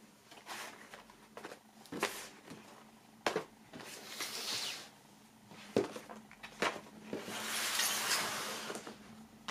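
Cardboard DVD box sets handled on a wooden table: a few light knocks as boxes are set down and stacked, and two longer scraping slides as a box is pushed across another box or the tabletop.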